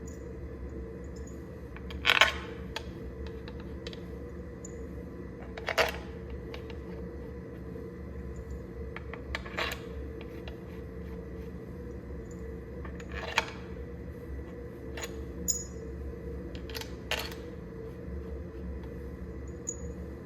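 Steady machine hum from the cylinder boring of a Cummins engine, with sharp metallic clinks about every four seconds.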